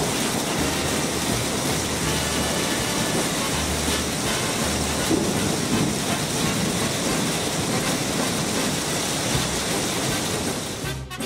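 Heavy rain pouring down in a dense, steady hiss, with low rumbles now and then underneath. It fades near the end as music comes in.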